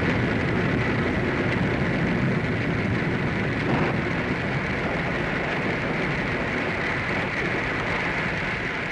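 Storm sound effect of a radio drama: steady, heavy rain with wind.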